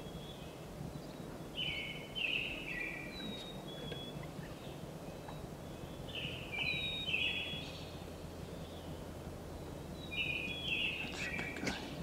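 Wild turkey tom gobbling three times, each gobble about a second and a half long and about four seconds apart.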